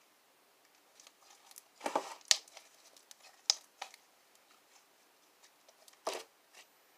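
Slime being squeezed and pulled by hand, giving off scattered sharp clicks and pops, the loudest about two seconds in, again at three and a half seconds, and near six seconds.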